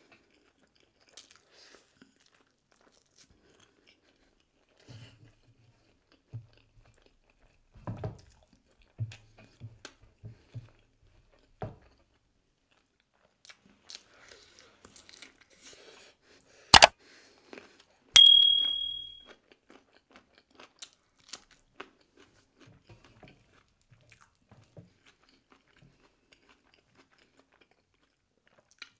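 Sparse, soft chewing and mouth sounds of eating rice and curry by hand. A little past halfway comes a sharp knock, and a second later a metal dish clinks and rings with a clear high tone that fades over about a second.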